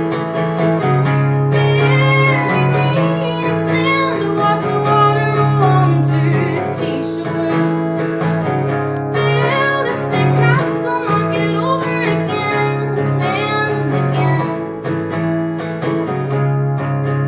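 Acoustic guitar strummed steadily, with a woman's voice singing a melody over it for much of the time.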